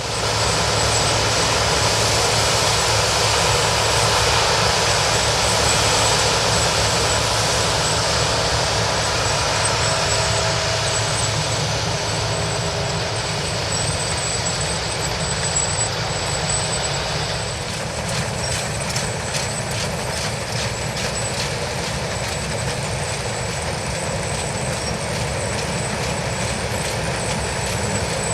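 New Holland TX68 combine harvester running steadily while harvesting rice, a loud machine drone with a low hum and a high hiss. About two-thirds of the way through the hiss eases and a fast, faint ticking comes in.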